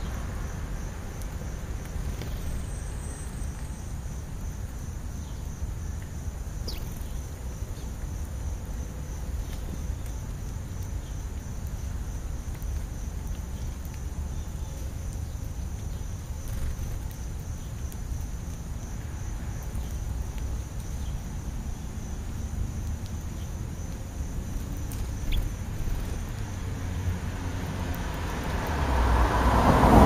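Outdoor ambience: a steady low rumble with faint insect chirping, and a car passing on the street, swelling to its loudest at the end.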